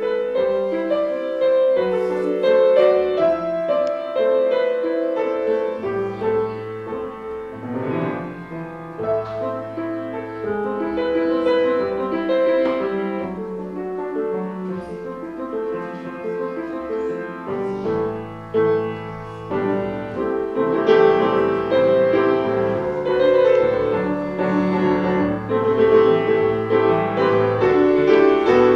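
Piano playing a slow piece: a melody over held bass notes that change every second or two.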